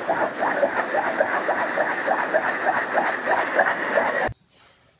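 Pet grooming dryer blowing steadily, with a rapid flutter in the air stream about four to five times a second. It cuts off suddenly about four seconds in.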